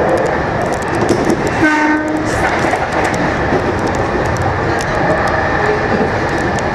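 Electric train running along the track, heard from the cab, with the clicking of wheels over the rails. About a second and a half in, a train passes on the other track and a short horn blast sounds for about half a second.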